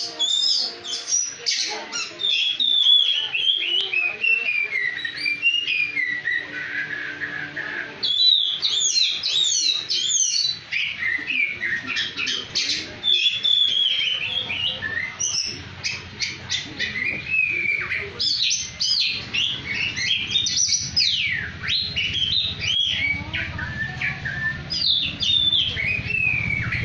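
Oriental magpie-robin (kacer) singing a long, varied song of rich whistled phrases, quick trills and down-slurred notes, with hardly a pause. A low steady hum rises underneath in the second half.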